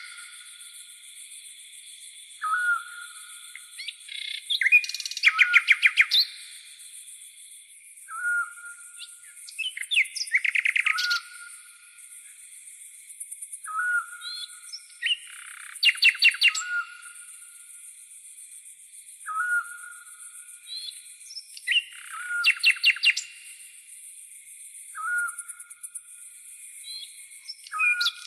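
Tropical forest birds calling: a short sliding note repeated every two to three seconds, and loud bursts of rapid trilled chirps several times, over a steady high-pitched drone of crickets.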